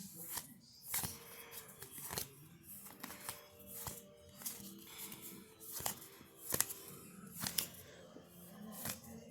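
Baseball cards being handled and flicked through by hand, with several short, sharp card snaps, over faint background music.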